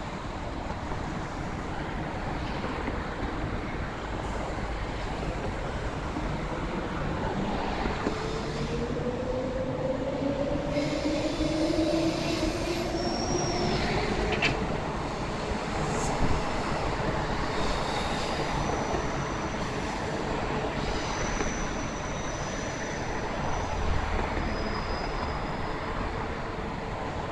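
Queensland Rail electric multiple-unit train running past below, with a steady rumble and its traction motors whining in a rising pitch as it gathers speed. Thin high squeals come in now and then, mostly in the second half.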